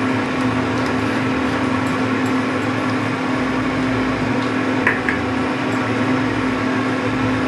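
A steady mechanical hum with a constant low tone from a running kitchen appliance, with one light clink about five seconds in.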